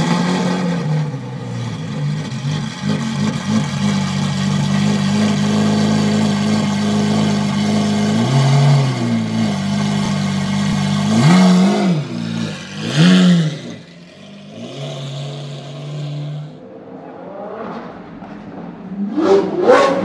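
Lamborghini Aventador's V12 idling steadily just after start-up, blipped three times about halfway through with quick rises and falls in revs. The idle then drops quieter, and a fresh rev rises near the end.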